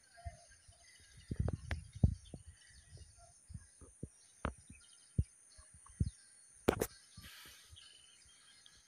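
Irregular clicks and knocks of hands handling a fishing line and its spool close by, over birds chirping and a steady high buzz.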